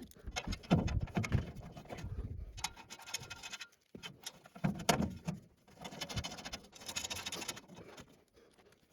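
Irregular knocks, clicks and scrapes of hands and tools working on a mini excavator's body panels and fittings, with a sharp click about four seconds in.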